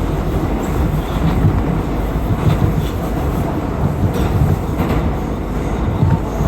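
R179 subway car running between stations, heard from inside the car: a steady low rumble of wheels on rail, with a few clicks as the wheels pass over rail joints about four and five seconds in.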